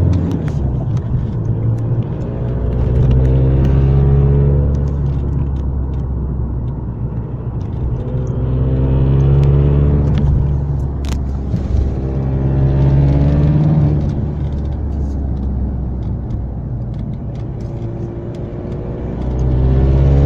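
VW Golf Mk5 1.9 TDI (77 kW) diesel engine running, its speed rising and falling back about four times, with the strange noise it is recorded for somewhere in the sound.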